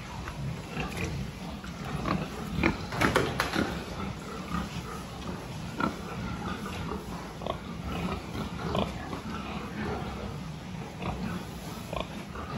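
A pen of young pigs grunting now and then, loudest in a cluster of calls about two to three and a half seconds in, over a steady low hum.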